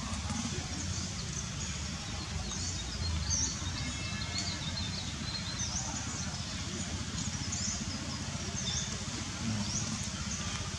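Outdoor ambience: small birds chirping in short, high calls scattered throughout, over a steady low rumble.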